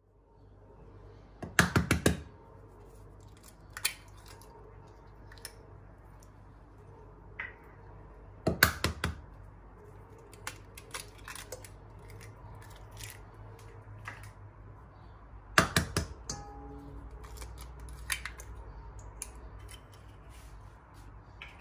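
Three eggs cracked one by one on the rim of a stainless steel mixing bowl, about seven seconds apart. Each crack is a quick cluster of three or four sharp knocks, followed by fainter clicks and crackles as the shell is pried open over the bowl.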